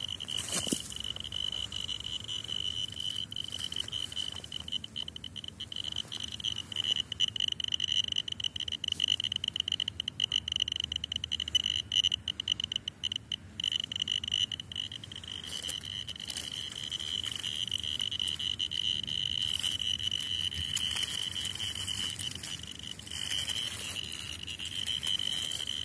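Radiascan-701A dosimeter's beeper giving a continuous high-pitched tone with rapid crackling clicks on top, thickest in the middle. The title calls the device's Geiger counter dead or bad, so this non-stop sounding is taken as the sign of a failed counter.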